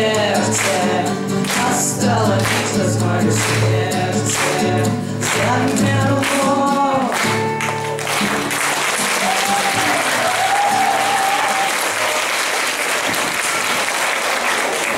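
A song with boys singing to electric and acoustic guitars ends on a held note about halfway through, and the audience breaks into steady applause.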